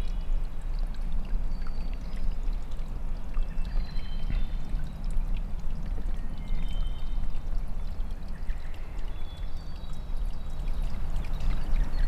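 Steady rush of running water, with faint, high, short chirps of birds scattered through it.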